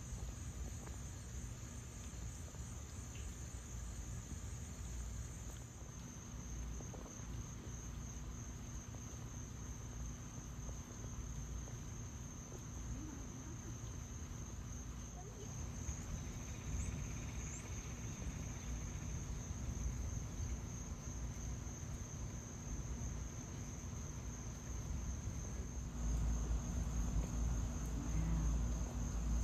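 A chorus of insects making a continuous high-pitched, rapidly pulsing trill. A low rumble underneath grows louder near the end.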